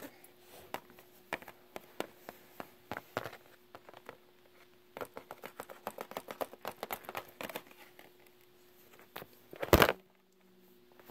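Small plastic Littlest Pet Shop figures handled and tapped against a plastic playset: scattered light clicks and taps, with one louder knock near the end.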